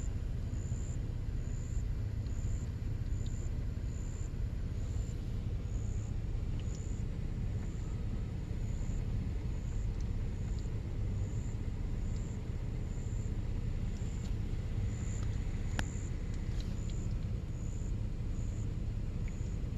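Car engine running with a steady low rumble, heard from inside the car. A faint high-pitched chirp repeats about every three-quarters of a second above it.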